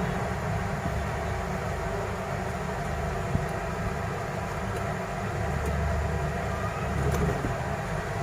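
Steady low rumbling background noise, with a few faint light clicks.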